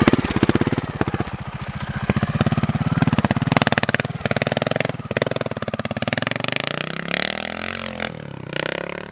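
Trials motorcycle's single-cylinder engine running at low revs with throttle blips, its fast pulsing swelling and easing as it picks its way over the terrain; about seven to eight seconds in the engine note rises and falls in pitch.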